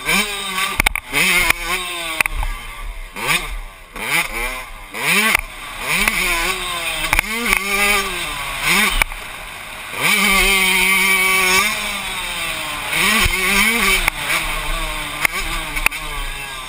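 Yamaha YZ125 125cc two-stroke single-cylinder motocross engine racing, heard from the rider's helmet: the revs climb and drop again and again through shifts and throttle chops for jumps and turns. About ten seconds in it holds steady revs for nearly two seconds before dropping again.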